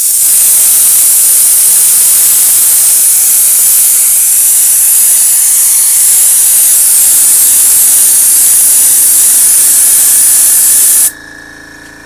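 Airbrush spraying paint, a loud steady hiss of air from the nozzle that cuts off suddenly about 11 seconds in. A quieter steady hum from the airbrush's small tank compressor is left running after the spray stops.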